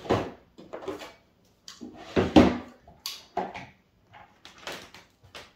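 Irregular knocks and clatter of things being handled and set down, about eight separate hits, the loudest about two seconds in.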